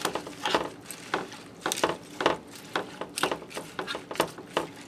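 A spoon stirring baby spinach into broth and rice in a metal pan, knocking and scraping against the pan in irregular clinks, two or three a second.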